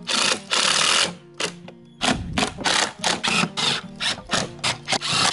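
Cordless drill driving screws through cedar gussets into the wooden door frame: one run of about a second, then a quick string of short bursts, about four or five a second. Faint background music plays underneath.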